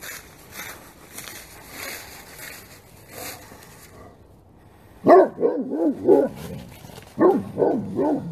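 Great Pyrenees barking in two quick runs, about five barks starting around five seconds in and four more a second later. Before that, footsteps rustle through grass and dead leaves.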